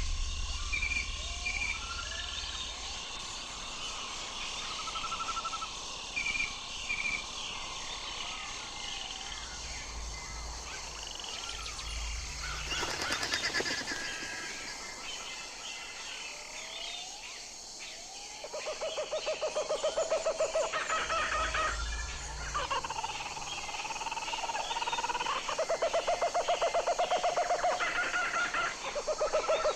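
Albatrosses calling: a mix of short calls from several birds, with a brief rushing noise midway. In the second half, long buzzy calls made of fast pulses repeat several times and are the loudest sound.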